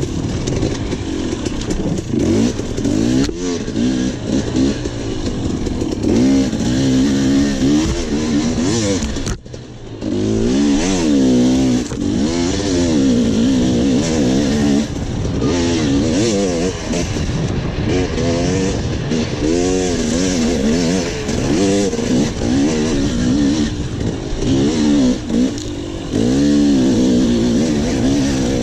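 Enduro dirt bike engine heard from onboard, its pitch rising and falling again and again as the rider works the throttle and shifts through the test, with a short drop in the engine sound about nine seconds in.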